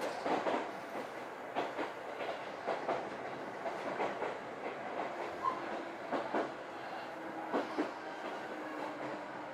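Chichibu Railway 6000 series electric train heard from inside the passenger cabin: its wheels clack over rail joints in evenly recurring pairs, about one pair every second and a quarter, over a steady running rumble. A faint steady low tone joins in the second half.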